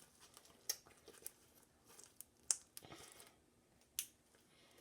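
Homemade slime being squished and stretched by hand, giving faint, scattered sticky clicks and pops.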